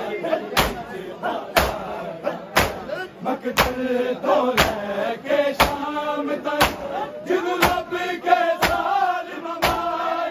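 A crowd of mourners doing matam, hands striking chests together in a steady beat about once a second, while many men's voices chant over it.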